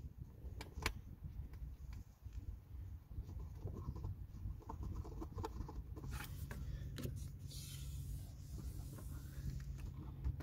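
Light clicks and taps of a screw and a plastic trim panel being handled as the screw is fitted into the panel, over a low rumble of wind on the microphone.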